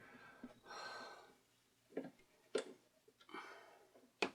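Light clicks and faint rustling from hands working the tone arm clamp of a 1962 Westinghouse record player, which does not hold the arm well; three clicks, the sharpest near the end.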